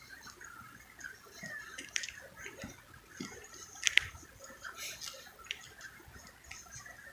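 Marker tip scribbling and squeaking across a surface in short strokes, with two sharp clicks, the louder one about four seconds in.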